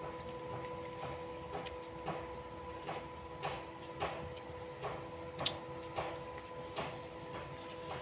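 A cat crunching and chewing cucumber: short crisp crunches about twice a second, over a steady faint hum.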